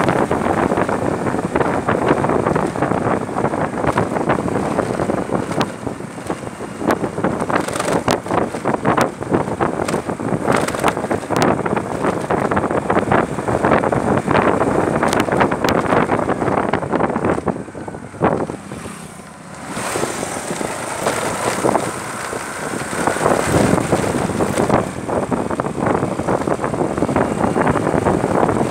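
Wind buffeting the microphone on a moving motorbike, over the engine and road noise, in gusts that come and go; it briefly drops away about two-thirds of the way through.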